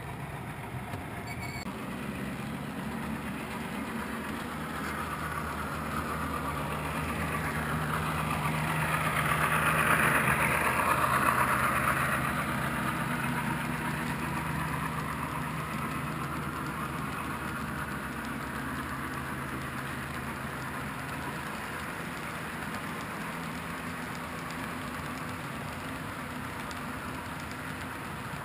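HO scale model freight train rolling past on the track, a steady clatter of small wheels on rails over a low hum. It grows louder to a peak about ten seconds in, then fades.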